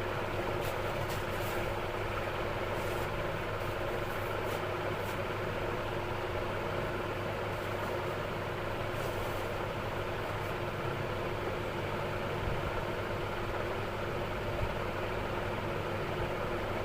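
A steady low mechanical hum runs without change, with a few faint short clicks in the first few seconds and again around nine seconds in.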